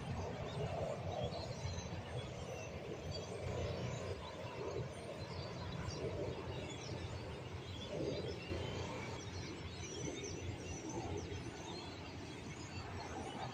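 A large flock of starlings chattering from a roost tree: a dense, continuous mass of overlapping chirps and whistles, over a steady low rumble.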